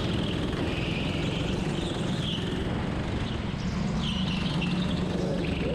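Biz rental go-kart's petrol engine running steadily under throttle, heard from the driver's seat, with the tyres squealing briefly now and then as the kart slides through the corners on the smooth indoor track.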